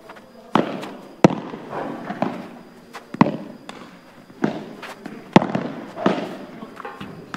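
Padel ball being struck back and forth with padel rackets and bouncing during a rally: about eight sharp pops at uneven spacing, roughly one a second, some with a short ringing tail.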